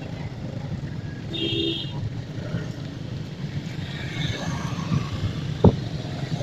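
Motorbike engines running in the street, with a short horn beep about a second and a half in and a single sharp thump near the end.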